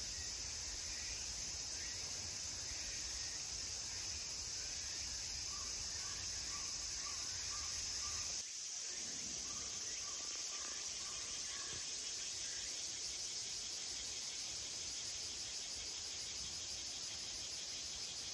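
Steady high-pitched insect chorus of a summer forest. Runs of short repeated chirps sound over it, and a low rumble drops out abruptly about eight seconds in.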